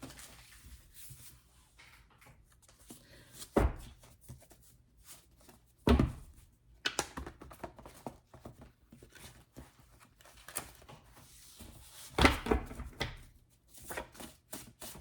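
A deck of tarot cards being shuffled by hand: a run of soft flicks and rustles, broken by three louder knocks.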